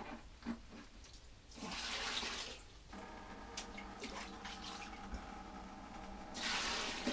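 Fermented grape wash ladled into a cloth-lined strainer over a steel pot: two pours of liquid splashing through, one about two seconds in and one near the end, with light knocks of the ladle between. A faint steady hum comes in about three seconds in.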